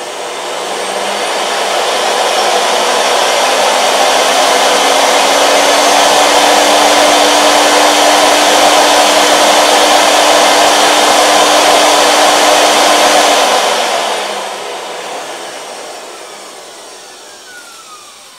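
Breathecool II supplied-air respirator's electric blower pumping air through its hose as its speed knob is turned up: a rushing whine that swells over the first few seconds and holds steady. About 13 seconds in its speed drops and it winds down with a falling whine.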